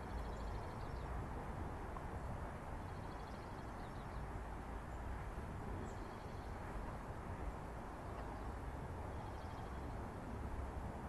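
Steady outdoor background rumble with faint, high bird trills three times: near the start, about three seconds in, and about nine seconds in.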